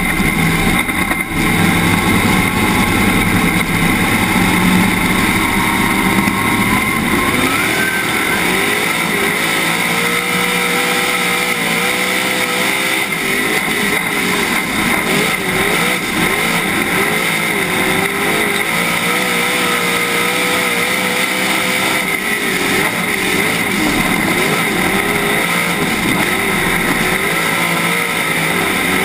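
Dirt-track modified race car's V8 engine heard from the in-car camera inside the cockpit, running under race power. Lower and steadier for the first several seconds, it climbs in pitch about seven seconds in, then swings up and down over and over as the car lifts and accelerates around the oval.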